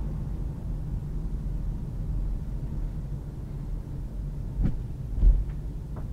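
Low, steady rumble of a car rolling slowly, heard from inside the cabin. Near the end come a few short knocks, the loudest about five seconds in.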